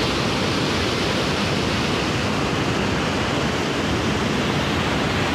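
The Iguaçu Falls: the steady rush of a large waterfall close by, an even rumble without a break.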